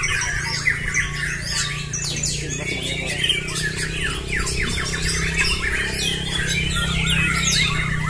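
Many caged white-rumped shamas singing at once in competition: a dense, overlapping tangle of fast whistles and trills sweeping up and down in pitch, over a steady low hum.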